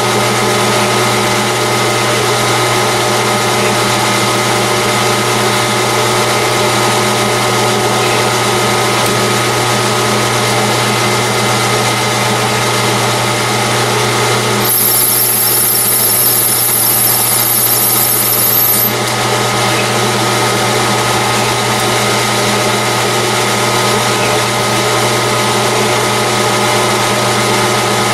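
Metal lathe running steadily during internal thread-cutting passes in a titanium tube, a constant motor and gear hum. For about four seconds midway a high whine joins in.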